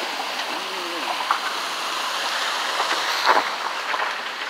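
Floodwater rushing across a street: a steady wash of water noise, with a few short sharp sounds, the loudest about three seconds in.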